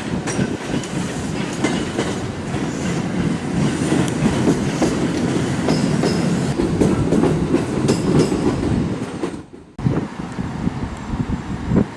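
Electric train rolling slowly over the tracks, its wheels clacking over the rail joints in a running series of knocks. The sound drops out briefly about nine and a half seconds in, then carries on.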